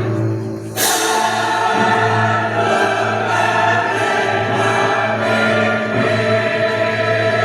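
Choir singing over music, held notes with a crash about a second in.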